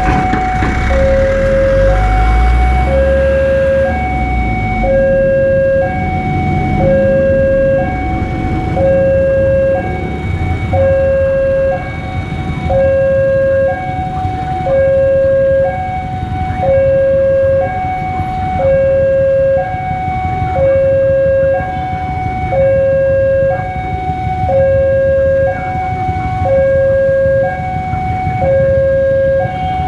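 Railway level-crossing warning alarm sounding a steady two-tone signal, a low note and a higher note taking turns about once a second: the barriers are down for an approaching train. A truck's engine rumbles as it pulls away in the first few seconds, over steady traffic noise.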